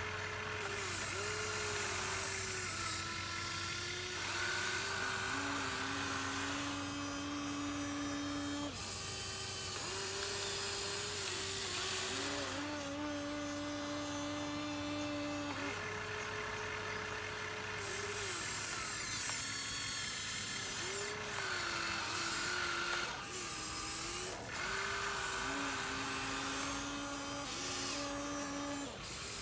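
Huina 1593 RC excavator's small electric gear motors whining in short runs of one to three seconds, the pitch stepping up and down as motors start and stop over a constant low hum.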